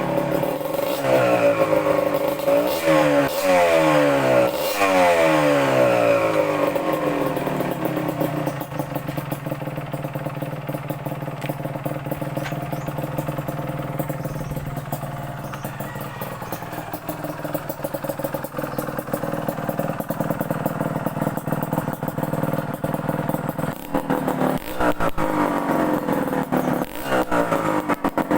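Kawasaki KMX 125's two-stroke single-cylinder engine is revved in a series of quick throttle blips, then settles to a steady idle for about fifteen seconds. Near the end it is revved again.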